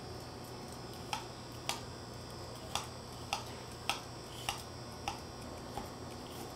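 A blade working a cucumber over a plastic cutting board: about eight light, sharp clicks, roughly one every half second or so, over a steady low hum.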